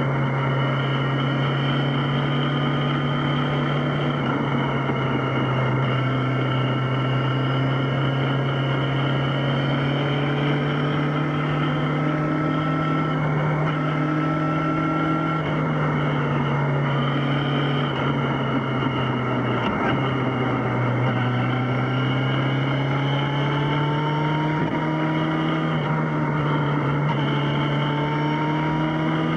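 Yamaha XJ6's inline-four engine running steadily under way, its pitch drifting slowly up and down, with a brief dip about twenty seconds in.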